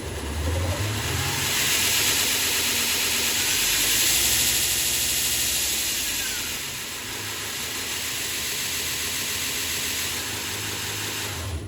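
Belt grinder running freely on a brand-new, very coarse belt: a steady motor hum under a loud hiss from the belt, on its first test run to check tracking.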